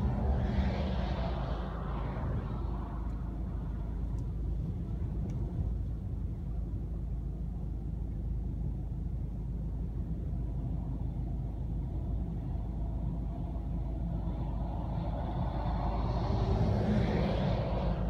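Strong wind buffeting a car, heard from inside the cabin: a steady low rumble, with gusts swelling louder in the first couple of seconds and again near the end.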